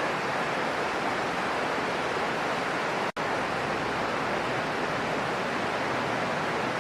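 Heavy rain falling steadily as a dense, even hiss, broken by a split-second gap about three seconds in.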